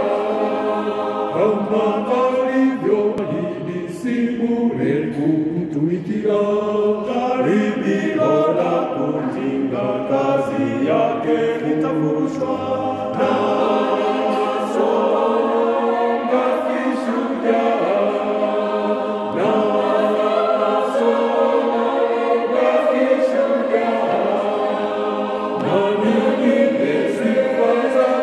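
Small mixed choir of men and women singing a Swahili gospel song unaccompanied, in rehearsal.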